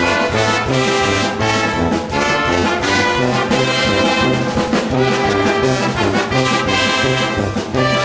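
Hockey goal song: loud, brass-heavy music with shifting notes over a steady low beat.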